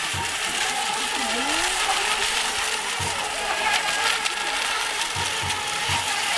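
Several electric RC racing boats running a course together, their motors giving a high, wavering whine; one tone dips and rises again in pitch about a second in as a boat turns.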